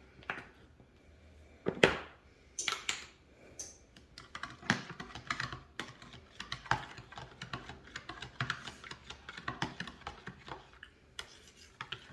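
Irregular light clicks and taps of kitchen utensils, with one sharper knock about two seconds in.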